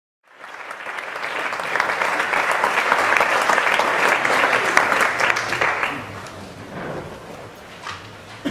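Concert audience applauding: the clapping swells over the first couple of seconds, then thins out and dies away from about six seconds in.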